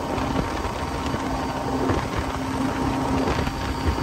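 Small boat's outboard motor running steadily under way, with a steady rushing noise over it.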